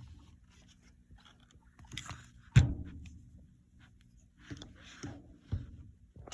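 Handling noises from a shotgun being moved about: scattered clicks and rustles, with one sharp knock about two and a half seconds in and a few softer knocks near the end.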